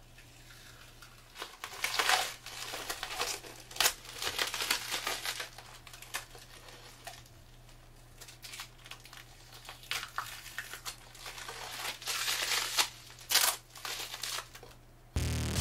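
Thin double-sided adhesive tape film being peeled off an aluminum build plate and crumpled up in the hands, in irregular bursts of crackling and tearing.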